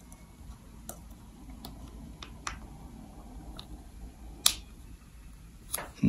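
Irregular sharp clicks and ticks of a thin pointed metal tool catching on the seam of an ASUS MB16AMT portable monitor's casing as it is pried at, about seven in all. The loudest click comes a little past two-thirds of the way through.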